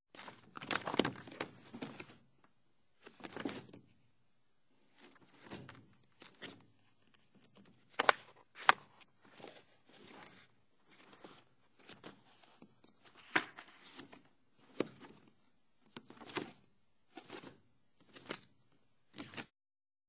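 Filing cabinet drawers sliding and being pushed shut, about a dozen separate movements with clicks and thunks. Two sharp clicks a little before the middle are the loudest.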